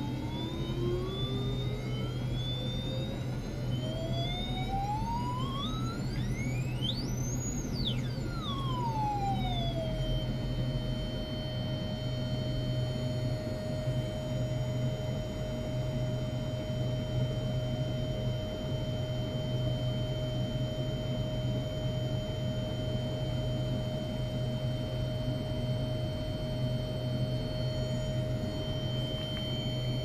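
Electronic test tone from a function generator setup, gliding steadily upward to a high whistle about seven seconds in, dropping back within a few seconds, then holding one steady pitch with overtones. A steady low hum runs underneath.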